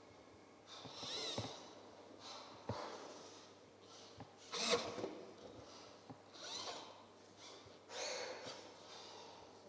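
Robotic drawing arms sketching, their pens scratching across paper in irregular strokes of about a second each, with faint clicks in between.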